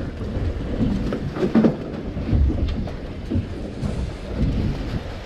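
Wind buffeting the camera's microphone aboard a boat at sea: an uneven low rumble that swells and dips.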